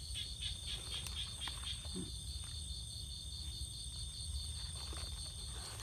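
Insects chirping steadily in a fast, even, high-pitched pulse, with a few faint knocks from coconut husks being moved by hand.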